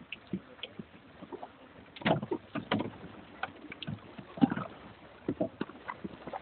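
Irregular splashes and short knocks of water and oars from a crew rowing boat paddling in toward a floating pontoon. The loudest knocks come about two seconds in and again about four and a half seconds in.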